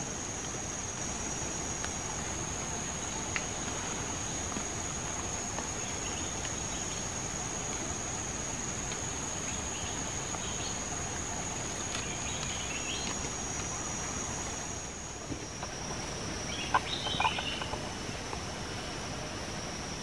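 Tropical forest ambience: a steady high insect drone, fading about three quarters of the way through, with scattered short bird calls. The loudest calls are a brief cluster about 17 seconds in.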